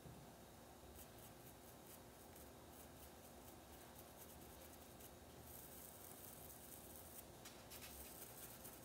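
Faint scratchy strokes of a small flat paintbrush rubbing paint into cotton fabric, over quiet room tone.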